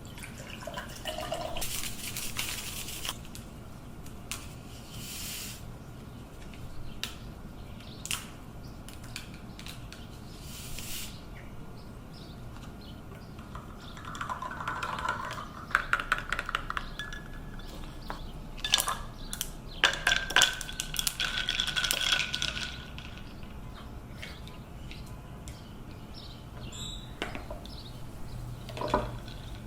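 Household kitchen sounds: dishes and cutlery clinking and knocking, with a couple of stretches of liquid running or pouring.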